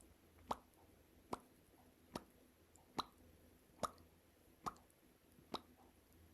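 Lips popping, a mouth imitation of bubbles bursting, done as a lip-strengthening exercise: seven short pops at an even pace of a little more than one a second.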